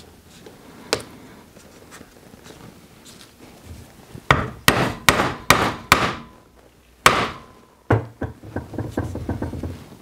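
A leather punch being driven through a belt strap with a poly maul: five quick blows about half a second apart, then one harder blow that rings briefly. A thump and light knocks of the tools being handled follow near the end.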